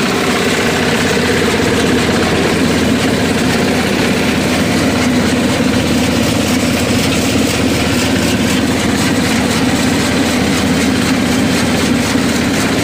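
Small diesel engine running steadily, driving a chaff cutter whose blades are chopping green fodder.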